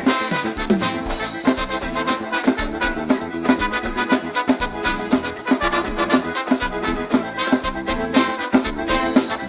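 Live lambada band playing an instrumental passage with a steady, quick dance beat.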